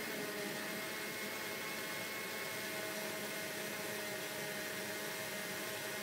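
Small countertop electric blender running at a steady speed, a constant motor whir with a faint high whine, as it purees ripe banana, milk and a raw egg into a smooth liquid drink.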